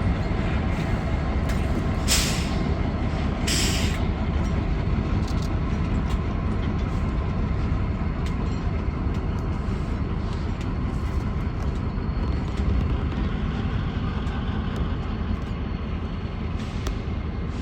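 Train rolling by with a steady low rumble, and two short hisses of air about two and three and a half seconds in.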